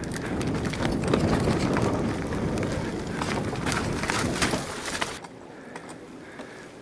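Mountain bike rolling down a dirt trail: rumbling tyre-on-soil noise with rattling clicks from the bike over roots and ruts, much quieter about five seconds in.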